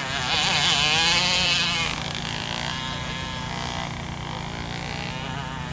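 Two-stroke gas engine of a NAMBA G1 class RC speed boat running at high revs, its pitch warbling rapidly up and down; it grows fainter about two seconds in.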